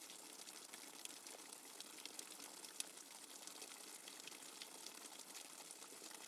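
Rainwater dripping fast and hard: a dense, irregular patter of quick drip ticks over a steady watery hiss.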